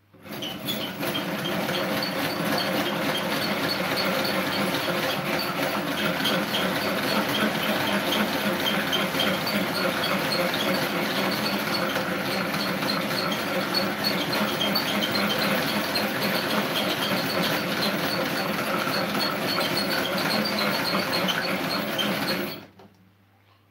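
A mixer whirring steadily while beating pancake batter in a bowl. It starts abruptly, holds an even pitch, and cuts off shortly before the end.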